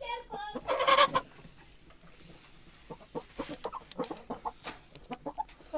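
Yellow Aseel chicken clucking: a loud call about a second in, then a run of short, sharp clucks.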